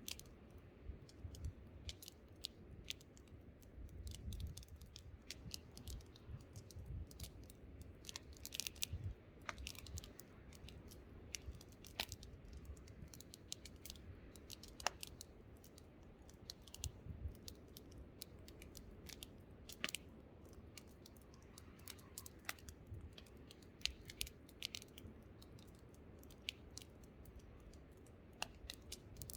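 Wood campfire crackling, with irregular sharp pops and snaps, over a low rumble of wind that swells a few times.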